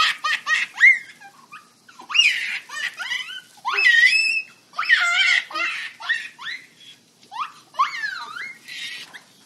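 A baby laughing and squealing: a string of short, high-pitched squeals that swoop up and down in pitch, with brief pauses between them.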